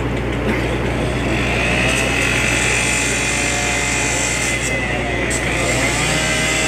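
Petrol-engine handheld cut-off saw running and cutting into a steel door. From about a second in, the disc grinding on the metal adds a high, steady screech, and the engine pitch dips and rises several times as the disc bites.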